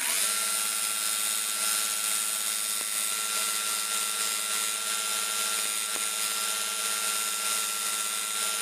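Kentaro electric belt sander switching on, its motor spinning up to speed in a fraction of a second and then running steadily with a constant whine and the hiss of the abrasive belt.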